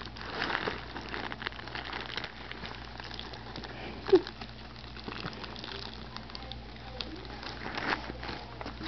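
Fine, rapid crackling and ticking of a hamster nibbling food held in its front paws, close to the microphone. A brief low tone cuts in about four seconds in.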